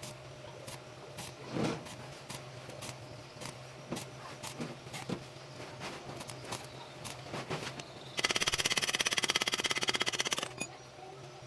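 Stick-welding setup: a steady low hum with scattered ticks, then about eight seconds in the welding arc strikes and gives a loud, even buzzing crackle for about two seconds before it cuts off.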